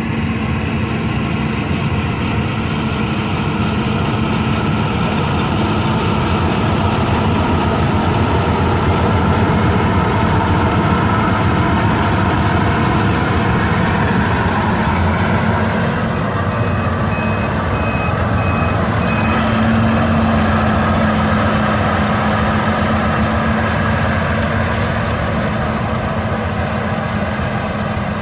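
Combine harvester running steadily at work, a loud continuous engine and machinery drone. About two-thirds of the way through, a short run of high, evenly spaced beeps sounds for about three seconds.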